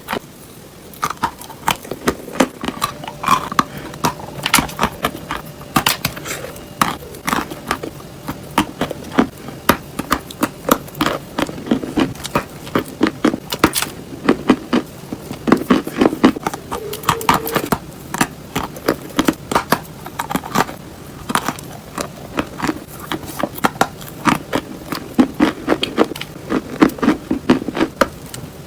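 Chalk being bitten and chewed: a dense, irregular run of sharp crunches and crackles, several a second.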